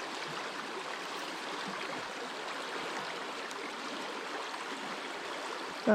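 Steady rushing of fast-flowing creek water running over rocks.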